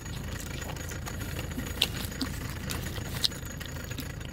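Car engine idling, heard from inside the cabin as a steady low rumble, with a few light sharp clicks over it.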